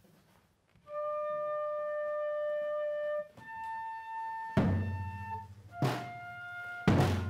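Accordion playing long, steady single held notes, moving to a new pitch every couple of seconds. About four and a half seconds in, heavy bass drum strikes join, three of them about a second apart, each louder than the accordion.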